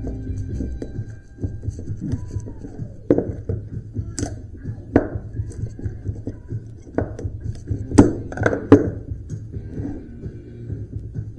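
Sharp metallic clanks and knocks from cut electric-motor stators and their copper windings being handled and pried apart. About seven strikes, the loudest in a quick cluster two-thirds of the way through, over quiet background music.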